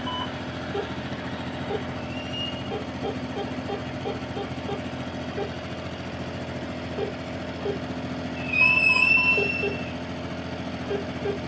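A motor vehicle running steadily. About 8.5 s in, a loud high-pitched tone sounds for a little over a second.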